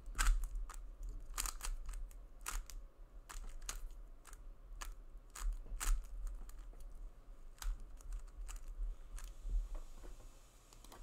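Plastic layers of a 3x3 speedcube clicking and clacking as they are turned quickly by hand, in uneven runs of sharp clicks that thin out after about nine seconds.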